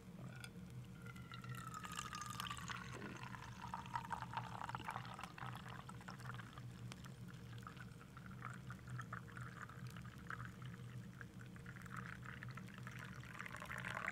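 A thin stream of hot liquid pouring from a metal kettle into an enamel mug, splashing steadily. Its pitch falls at first and then climbs near the end as the mug fills.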